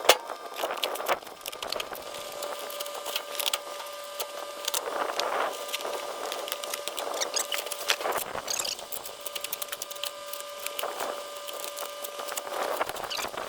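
A metal hip roof toolbox being handled: scattered clicks and knocks, with short high squeaks, over a steady hum.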